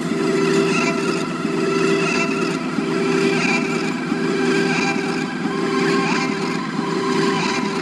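Electric guitar played through a home-built rotating tape-drum delay and out of eight speakers set in a circle inside a lampshade: a dense, continuous wash of guitar that swells and fades in a steady cycle, roughly once a second.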